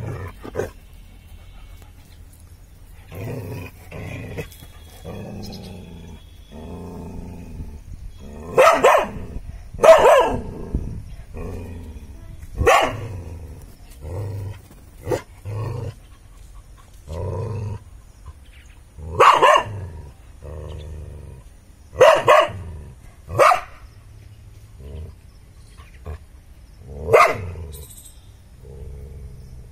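A dog barking at a snake: loud, sharp single barks every few seconds at irregular gaps, with quieter growling between them.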